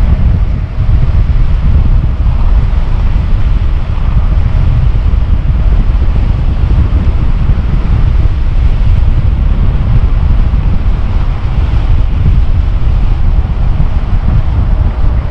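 Heavy wind buffeting on the camera microphone from riding an electric bike at about 34 mph: a loud, steady low rumble.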